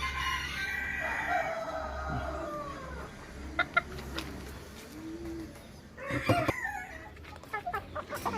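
A rooster crows once: a long call that falls in pitch over about three seconds. Shorter clucks and calls from other chickens follow.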